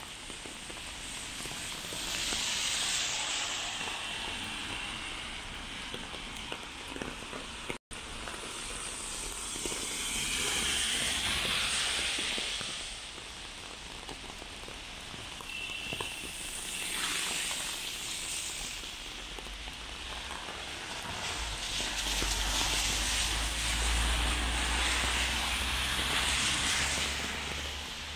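Car tyres hissing on a rain-soaked road, swelling and fading as several vehicles pass one after another over a steady rain wash. A low rumble runs under the last pass.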